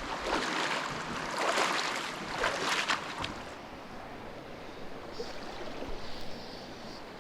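Creek water rushing: a louder, busier rush for about the first three seconds, then a softer, steady flow.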